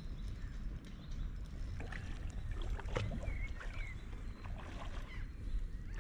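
Hooked carp splashing and swirling at the surface as it is played toward the landing net, over a steady wind rumble on the microphone, with a sharp splash about three seconds in.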